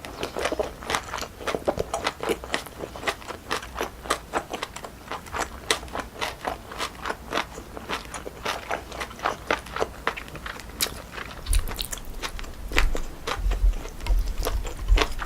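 Close-miked chewing of cold sliced pork feet and jellyfish salad: a quick, steady run of wet, crunchy clicks, with a few low thumps in the last few seconds.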